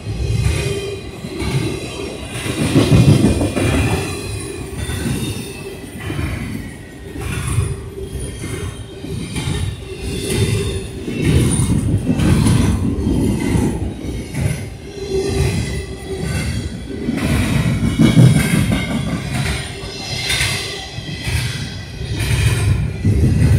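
Double-stack intermodal freight train rolling past close by: a steady rumble of steel wheels on rail that swells and fades as each car's wheel sets go by, with quick clacks over rail joints and a thin wheel squeal that keeps coming back.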